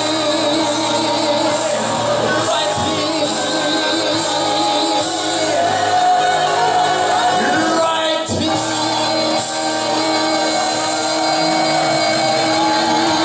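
Male voices singing a rock-and-roll show tune into microphones over a loud band accompaniment, with a long held note in the middle.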